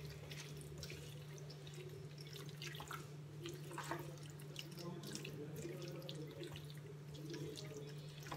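A silicone spatula stirs fish pieces through thick masala in a non-stick frying pan, making soft scrapes and small wet crackles as the masala fries. A steady low hum runs underneath.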